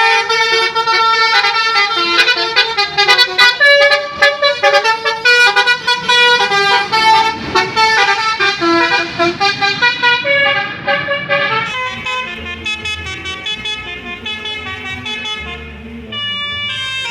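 Telolet basuri bus horn playing a quick melody of changing notes, loud, turning quieter and lower from about two-thirds of the way through.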